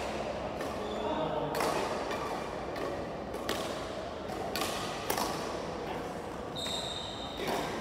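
Scattered sharp knocks of badminton rackets striking shuttlecocks in a large sports hall, about five in all, with a brief high squeak of a shoe on the wooden court floor near the end.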